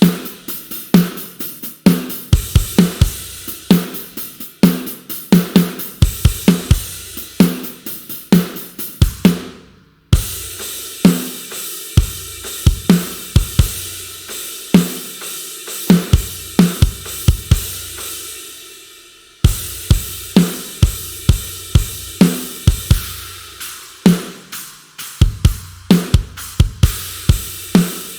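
Sampled rock drum kit from GetGood Drums' One Kit Wonder Aggressive Rock library playing grooves of kick, snare, hi-hat and cymbals. The pattern stops about ten seconds in and again near twenty seconds, starting up again each time.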